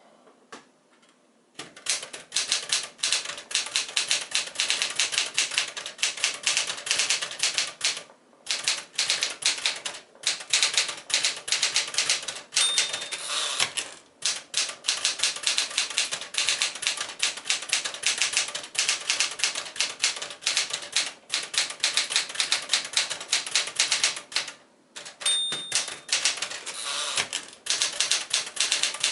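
1976 Smith-Corona Classic 12 manual typewriter typing fast: a rapid run of key and typebar strikes, broken by a few short pauses, with two brief ringing tones, one about halfway and one near the end.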